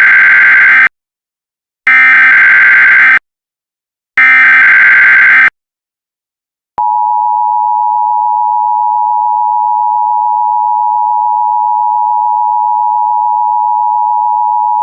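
Emergency Alert System (EAS) alert: three short bursts of buzzing SAME header data tones, each about a second long with gaps between. About seven seconds in, the steady two-tone EAS attention signal begins and holds without a break.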